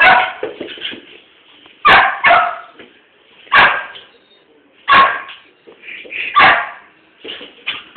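Small dog barking repeatedly: loud single and double barks about every second and a half.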